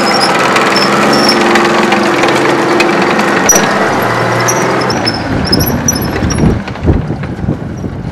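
FV434 tracked armoured vehicle driving past under its own power, its engine running steadily. About five seconds in, the sound grows uneven and slowly fades as the vehicle draws away.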